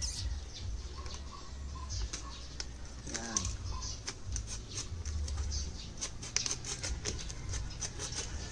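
Utility knife blade scoring and cutting into a thin aluminium drink can: a run of small, irregular scratches and clicks as the metal is worked open.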